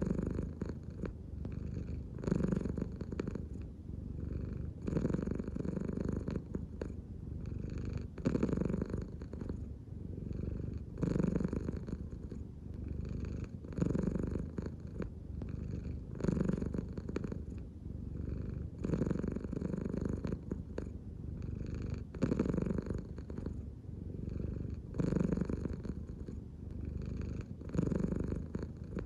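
American Shorthair cat purring steadily, the purr swelling and easing in a regular cycle about every two and a half to three seconds as it breathes in and out.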